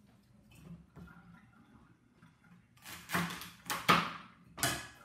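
Knife chopping celery stalks on a cutting board: a few faint handling sounds, then four sharp chops in the second half.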